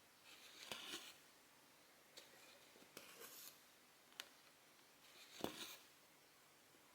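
Faint stitching: cotton thread swishing as it is drawn through 14-count cross-stitch fabric, three pulls of about half a second each, with a few sharp needle clicks between them. The loudest pull and click come near the end.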